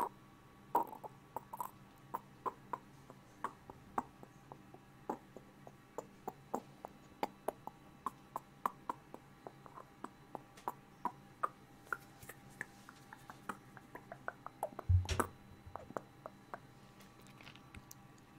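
Close-miked ASMR mouth pops and tongue clicks, made as an imitation of nature sounds: a steady run of short pitched pops, about two to three a second, their pitch climbing a little around the middle. About 15 seconds in comes one louder, deeper thump.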